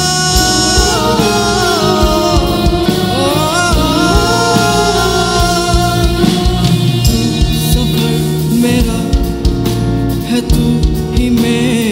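Live band playing a Bollywood ballad. A sliding, ornamented melody line runs over sustained chords, and from about halfway through, drum-kit strokes and cymbal hits grow busier.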